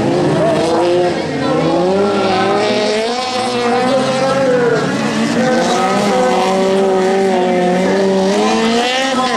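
Autocross buggy engines revving hard, their pitch rising and falling again and again, with more than one car running at once.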